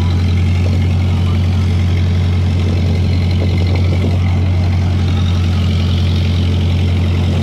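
Fishing boat's engine running at a steady idle, a constant low drone that does not change.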